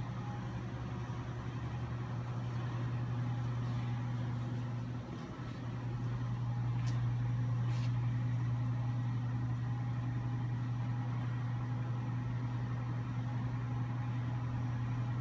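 Steady electric-motor hum of running shop machinery: a low drone with a fainter higher tone over it, dipping briefly about five seconds in.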